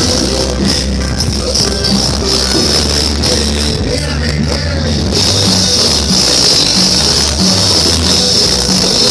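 Loud dance music played over a sonidero's large outdoor sound system, with heavy bass. The high end grows louder about five seconds in.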